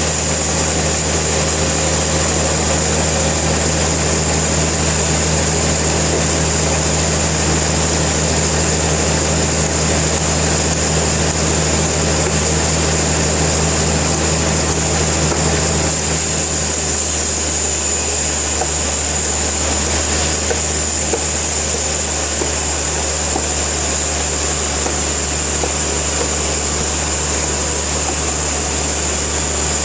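Sawmill machinery running steadily: a constant mechanical drone with a low hum and a high whine. About 17 s in, one of the low hum tones drops out and the sound shifts slightly.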